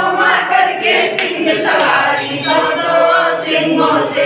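A group of voices singing together without instruments, a devotional hymn at a Kali puja, with many voices overlapping on held notes.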